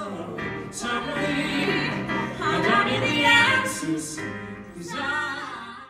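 A man and a woman singing a duet with vibrato, with keyboard accompaniment.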